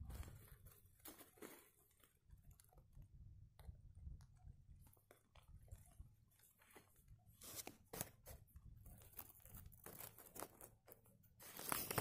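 Faint, scattered crackles and rustles of dry twigs and tinder being handled while a fire is lit with a lighter, with a few sharper cracks about two-thirds of the way through.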